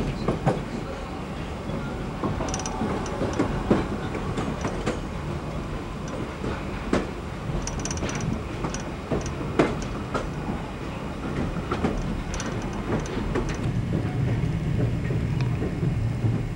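Passenger train running over the rails, its wheels clacking irregularly over rail joints and switches under a steady rumble. Short high squeaks come about 3, 8 and 12 seconds in.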